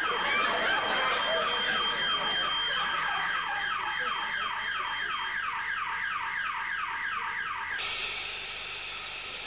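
Electronic alarm siren: a quickly repeating falling tone, about three sweeps a second, with a steady high beep over it for the first half. Nearly 8 seconds in, the siren stops and a loud hiss of vapour takes over as fog pours from the cryogenic pods.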